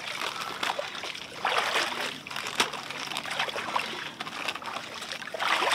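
Shallow river water trickling and splashing, with scattered sharp clicks and louder rushes of noise about a second and a half in and again near the end.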